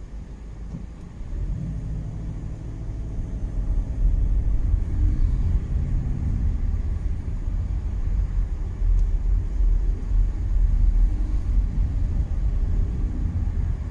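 Volkswagen Golf Mk7 pulling away in slow traffic, heard from inside the cabin: a low engine and road rumble that grows louder about a second and a half in and again around four seconds in as the car picks up speed.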